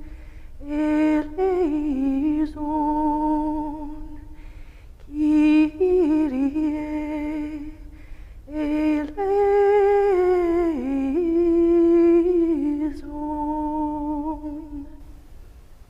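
A single voice sings a slow, unaccompanied chant-like melody of long held notes, in about four phrases with short breaths between them, fading out shortly before the end.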